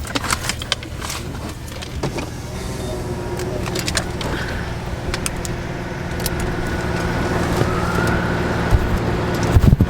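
Car engine idling with a steady low hum, heard from inside the cabin, with a few light clicks.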